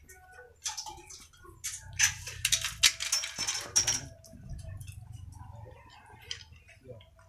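Scattered metallic clinks and rattles from tools and metal parts being handled during engine removal, denser and clattering between about two and four seconds in.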